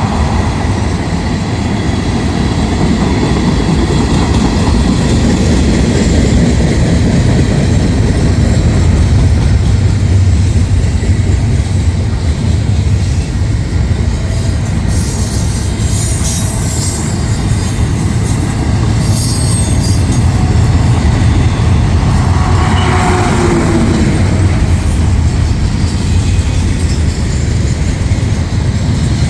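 Freight train cars of a long manifest rolling past at track side: a steady, loud rumble of wheels on rail, with patches of high-pitched wheel squeal about halfway through.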